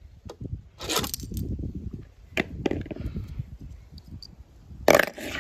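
Small toy cars being handled: scattered clicks and clatters of plastic and die-cast toys knocking against a plastic toy truck and a stone edge, a brief clatter about a second in and a sharp knock near the end, over a low rumble.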